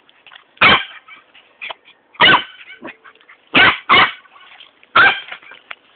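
Dog barking, about five short separate barks spread over the few seconds, with faint smaller noises between them.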